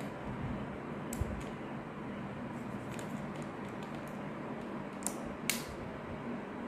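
Steady background hiss and low hum of a small room, with a few light, sharp clicks and ticks scattered through it, the clearest near the end, such as small items being handled.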